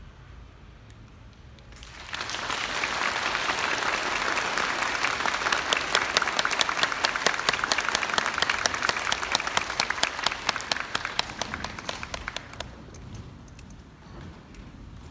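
Audience applauding. It starts suddenly about two seconds in, runs strongly for about ten seconds, then thins out and dies away near the end.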